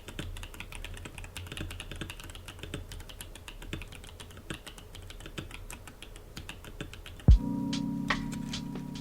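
Fast typing on an Epomaker EK68 mechanical keyboard with Akko V3 Lavender Purple Pro linear switches: a dense run of key clacks. About seven seconds in, music cuts in with a sudden loud hit and a held chord, and a few keystrokes sound over it.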